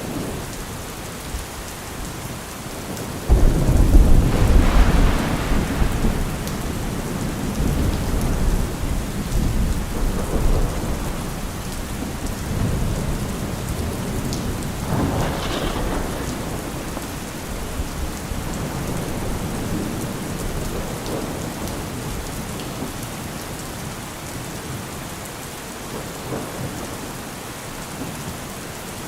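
Thunderstorm: steady rain falling, with a sudden loud thunderclap about three seconds in that rumbles on for several seconds, then quieter rolls of thunder over the rain.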